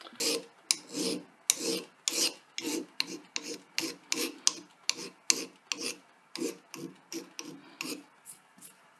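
Hand file rasping over the edges of a small metal collar clamped in a vise, in quick even strokes, about three a second, that stop shortly before the end. The file is deburring the collar's sharp edges and corners.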